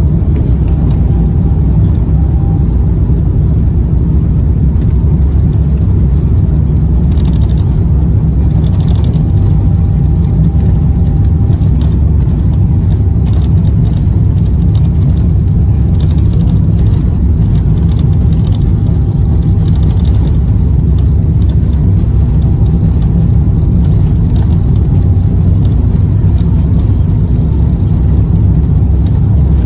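Steady low rumble inside the cabin of an Airbus A350-900 as the jet moves on the ground, the sound of its Rolls-Royce Trent XWB engines and airframe heard from a window seat over the wing.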